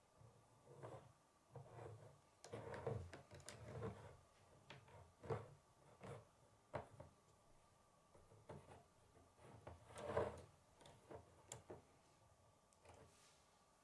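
Plastic K'nex rods and connectors being handled and snapped together: faint, irregular clicks and light rattles, the loudest about ten seconds in.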